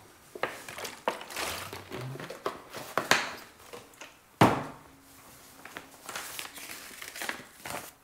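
Thin plastic water bottle crinkling and crackling as it is squeezed during drinking, in irregular clicks. One sharp knock about four and a half seconds in stands out as the loudest sound.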